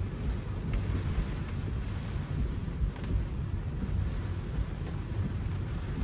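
Low, steady road rumble inside an electric car's cabin as it drives on a wet road in the rain, with a faint hiss above it.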